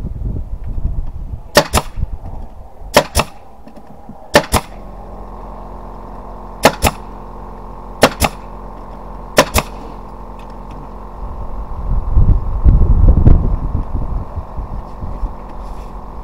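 Pneumatic nail gun firing into wooden boards six times, about one and a half seconds apart, each shot a sharp double crack. A steady hum runs underneath from about four seconds in, and a loud low rumble comes near the end.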